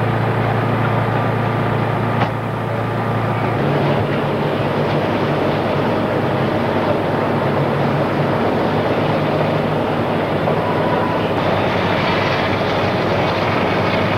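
Steady rumble of fire apparatus engines and pumps running at a large working fire, with a single click about two seconds in, after which the low hum shifts.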